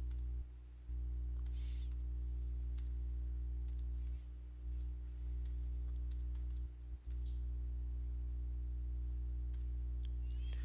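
Steady low electrical hum, dropping out briefly three times, with sparse faint computer-keyboard keystrokes as code is typed.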